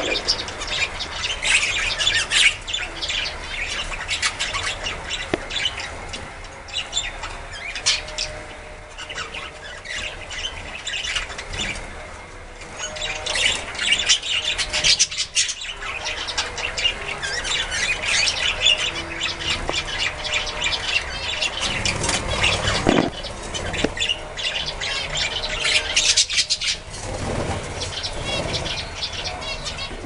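A flock of budgerigars chattering continuously, a dense stream of short high chirps and squawks.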